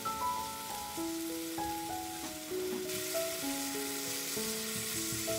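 Doenjang-marinated pork belly sizzling in a frying pan, the sizzle getting louder about halfway through. Background music with a simple melody of held notes plays throughout.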